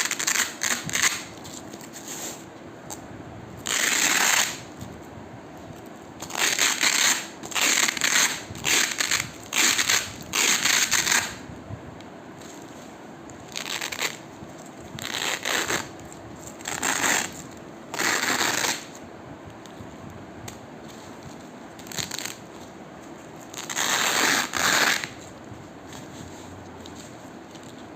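Hook-and-loop (Velcro) fastener being ripped apart over and over, a crunchy tearing sound in short rips of about half a second to a second each, with irregular pauses between them.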